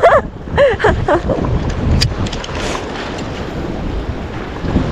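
Wind buffeting the microphone over the rush of sea surf, with a single sharp tick about two seconds in.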